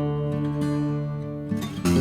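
Background music on acoustic guitar: plucked notes ring and fade, and a new chord is struck near the end.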